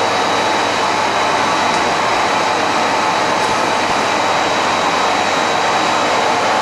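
Vacuum cleaner running steadily, its motor giving an even rushing noise with a faint high whine over it.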